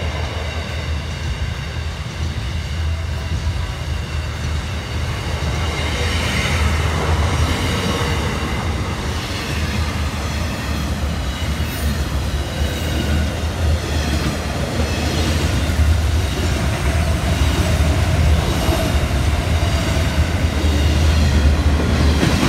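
Freight train of container, tank and box wagons rolling past close by: a steady rumble of wheels on rail with thin, wavering high-pitched wheel squeal over it, growing slowly louder.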